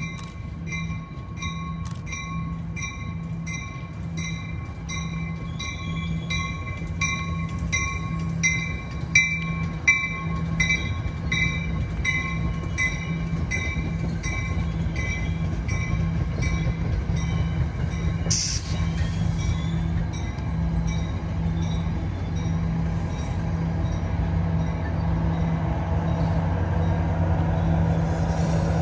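Train approaching, with a bell ringing about twice a second that fades out after about two-thirds, over a steady low hum that grows louder toward the end. A brief sharp hiss about two-thirds of the way through.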